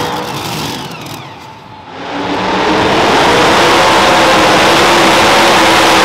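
A pulling truck's supercharged engine running hard at high revs under load as it pulls the sled. It builds in about two seconds in, after a brief dip in the noise, and then holds loud and steady.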